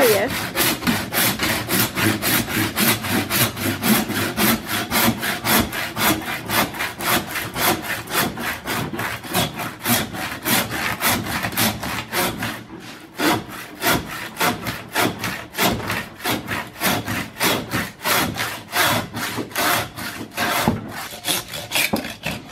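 Hand meat saw cutting through a beef leg bone, a steady rhythm of back-and-forth rasping strokes with a brief pause about twelve seconds in. The bone is being sawn open into the marrow to make soup bones.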